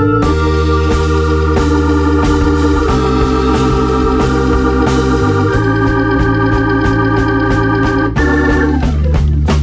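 Background music led by sustained organ chords over a steady bass line, with light percussion ticks; the chords thin out near the end.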